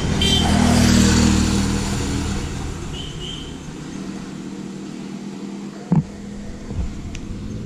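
Motor scooter passing close by, its engine loud at first and then fading away over a couple of seconds, leaving a low road hum. About six seconds in there is a single sharp knock.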